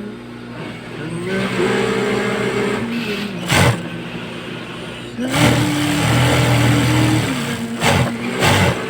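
Industrial sewing machine running in two bursts, its motor whine rising as it speeds up, holding while stitching, then falling away as it stops. Three short sharp knocks come between and after the bursts.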